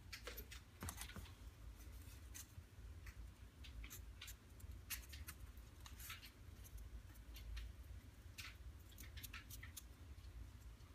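Faint, irregular light clicks and taps of small laser-cut wooden model-aircraft tail parts being handled and slotted together, over a low steady hum.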